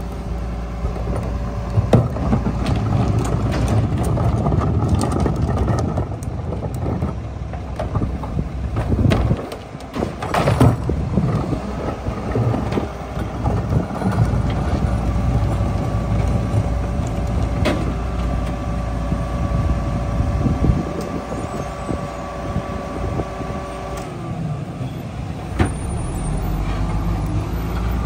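Mack MR rear-loader garbage truck with a Leach packer body: the diesel engine runs while the hydraulic packer cycles, and loud bangs come as carts are tipped into the hopper, about two seconds in and again about ten seconds in. A steady hum from the packing cycle holds through the middle and stops a few seconds before the end.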